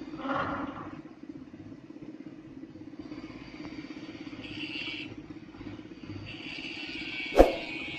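Mitsubishi Canter dump truck's diesel engine running steadily while the hydraulic hoist tips the bed, as the steel load grinds on the bed with a high, ringing scrape. A single loud metallic clang comes near the end.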